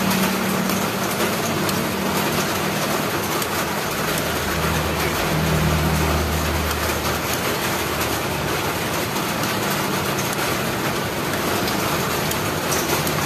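Coco jam (coconut milk and sugar) boiling hard in a wok on a gas stove, bubbling and popping as a metal ladle stirs it, over a steady rushing noise. A low hum swells for a couple of seconds near the middle.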